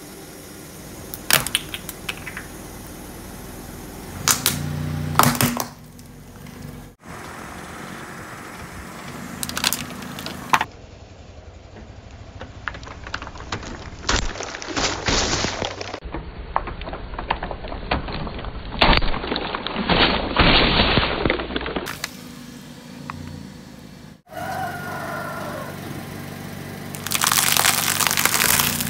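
A car tyre rolls slowly over objects and crushes them in several short takes. Hollow plastic toy balls crack, plastic bottles of coloured liquid burst, and a wrapped packet crunches flat, over the car's engine running. Sharp cracks and dense crunching come in clusters, the longest in the middle.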